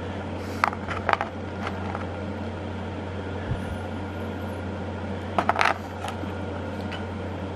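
Small chips of opal-bearing clay and rock clicking against each other and a plastic gold pan as a hand sifts through them: a few clicks about a second in and a quick cluster a little past halfway, over a steady low hum.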